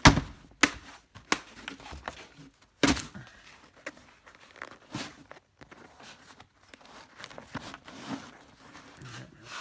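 Test leads and meter cases being handled and put away in a toolbox drawer: scattered clicks and knocks, the loudest at the start and about three seconds in, with some rustling between.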